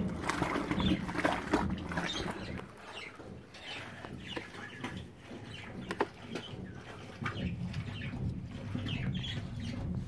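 Fisher & Paykel top-loading washing machine agitating a wash load: water and clothes sloshing irregularly around the agitator over a low motor hum. It is quieter for a few seconds in the middle.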